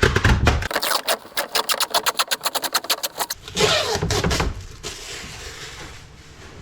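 Protective plastic film being peeled off an acrylic sheet: a rapid crackling run of small ticks for a couple of seconds, then a louder rustling tear and a fainter hiss near the end.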